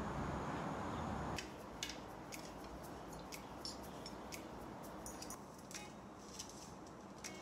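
Steady outdoor background noise that cuts off abruptly about a second and a half in. It is followed by quiet room tone with scattered small clicks and rustles of someone settling into a cushioned armchair.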